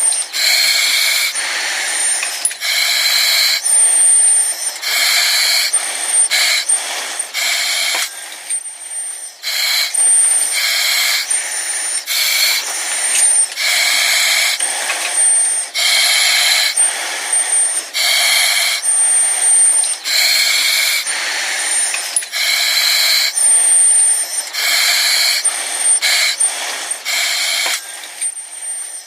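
Breathing through an oxygen mask: hissing breaths in and out in a steady rhythm, one every second or two, with a thin high whistle on some of the breaths.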